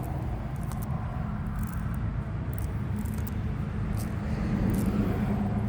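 Steady low hum of a running engine, with a few faint clicks over it.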